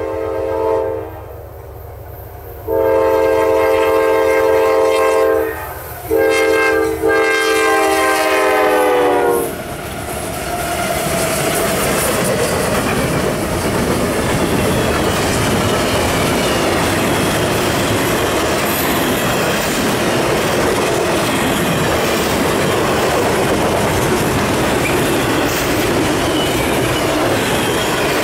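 Diesel locomotive air horn sounding the grade-crossing pattern: the tail of a long blast, then a long, a short and a final long blast whose pitch drops as the lead locomotive, CSX 476, a GE AC4400CW, passes. After that the four-locomotive intermodal train rolls past at speed, its wheels clicking and rumbling over the rails under the double-stack container cars.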